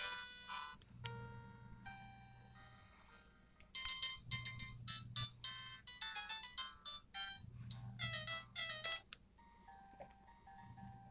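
LG TM520 mobile phone playing a run of its built-in ringtones: short electronic melodies of bright beeping notes. One tune ends about a second in, a quieter one follows, then a louder, fast tune plays from about four to nine seconds in, and a softer one starts near the end.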